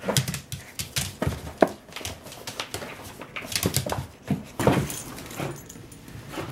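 Small long-haired Chihuahua playing tug with a plush toy on a vinyl floor: irregular taps and scuffles of claws and toy, with short dog sounds mixed in.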